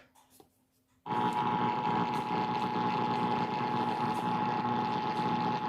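Emergency Alert System attention signal: a steady two-tone alarm of two close pitches near 850 and 960 Hz that cuts in abruptly about a second in and holds, with a lot of noisy hiss around it.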